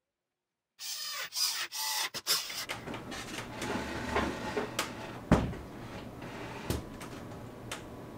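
A wooden table being shifted by hand: wood scraping and rubbing, with scattered clicks and a sharp knock about five seconds in.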